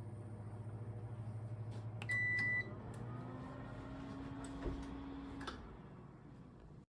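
Sharp Healsio AX-X2 microwave oven running with a steady low hum. About two seconds in it gives a single high beep. The hum then gives way to a different steady whir, with two clicks near the end.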